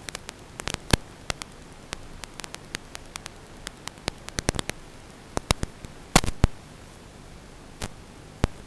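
Steady static hiss broken by irregular sharp crackles and pops, the loudest cluster about six seconds in.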